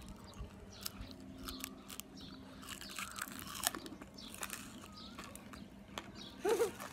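Crunching and chewing of crisp deep-fried whole baby chicken: a scatter of sharp, irregular crackling bites. A brief voiced hum near the end.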